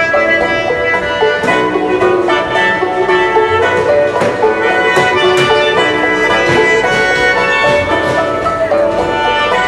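Background music with quick plucked string notes over a steady accompaniment.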